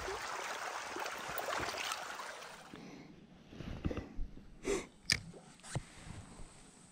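Creek water running as a steady rush, which drops away after about three seconds; then a few short scattered clicks and knocks, with one louder brief noise a little past the middle.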